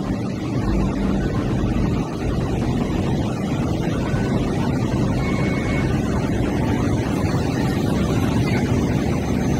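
MTR Light Rail car pulling slowly past close by: a steady low rumble of its motors and wheels on the rails.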